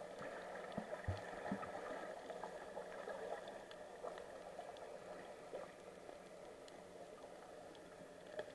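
Faint underwater ambience: water moving around the camera, with a steady faint hum, scattered light clicks and a couple of low thuds about a second in.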